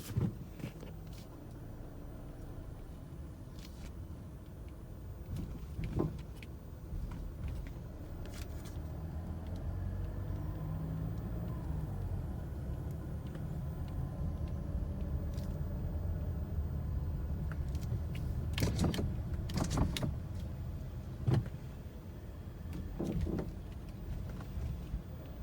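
2017 Mazda CX-9 being driven over speed bumps, with a steady low road rumble and several sharp clunks, a few of them close together about three quarters of the way through. The clunking is still there after the lower control arm was replaced, so its cause is unknown.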